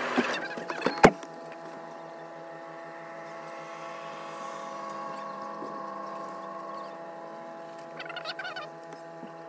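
A car door shuts with a loud thud about a second in. A steady hum follows inside the parked car, with a short warbling call near the end.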